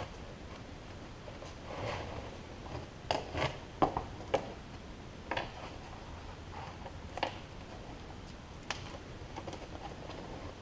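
Small metal snap parts clicking and a thick Molle webbing sheet rustling as a snap is pushed through a punched hole by hand: scattered light clicks, with a quick cluster of sharper ones about three to four seconds in.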